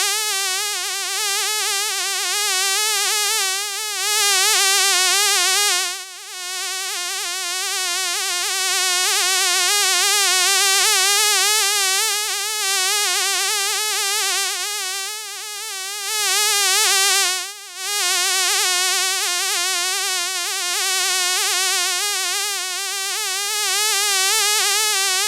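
Fly buzzing continuously, its pitch wavering slightly up and down. It briefly fades and returns twice, about six seconds in and about two-thirds of the way through.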